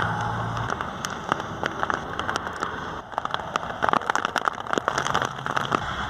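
Rain falling, a steady hiss with many sharp, irregular drop ticks close to the microphone.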